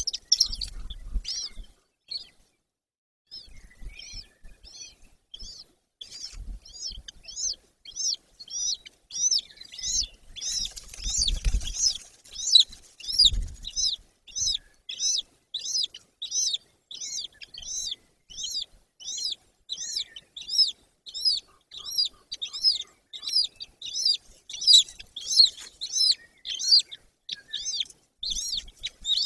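Golden eagle chicks cheeping: a thin, high call that rises and falls, repeated about twice a second. A few low thumps sound in the first half.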